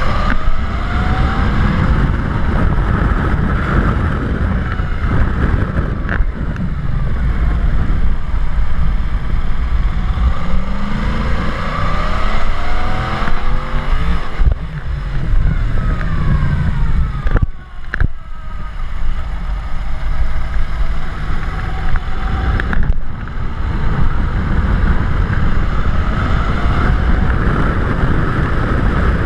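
Steady wind rumble on a bike-mounted action camera's microphone while riding, with a vehicle's engine pitch rising and falling several times. About 18 seconds in the rumble briefly drops, with a sharp knock.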